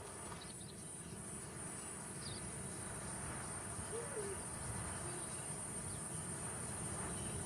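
Night insects, crickets, chirring steadily and high over low ambient noise, with one faint short call about four seconds in.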